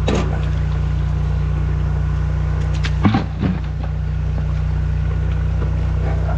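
Drain jetter engine running at a steady drone while jetting a blocked stormwater line, with two brief knocks, one at the start and one about three seconds in.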